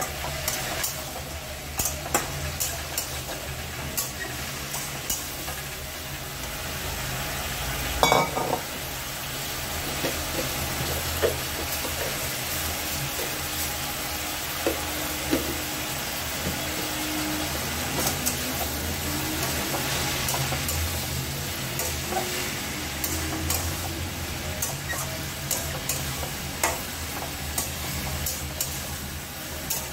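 Metal spatula stirring ash gourd and potatoes in a metal kadai, scraping and clicking against the pan over a steady sizzle. One louder knock on the pan about eight seconds in.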